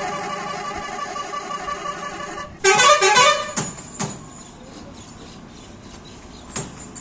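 Bus horns: a long, steady horn blast that slowly fades, then about two and a half seconds in a short, loud horn sounding a quick run of stepped notes. After it, quieter bus and street noise with a few sharp knocks.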